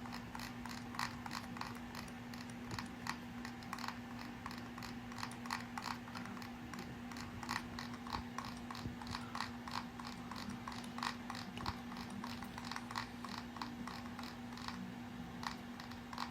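Computer mouse scroll wheel clicking in quick, irregular runs of small ticks while a long document is scrolled through, over a steady low hum.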